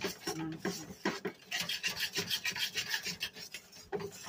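Wire whisk scraping against the inside of a metal pot in quick, even strokes, several a second, stirring a thick flour-and-chicken-stock mixture as it thickens into pie filling.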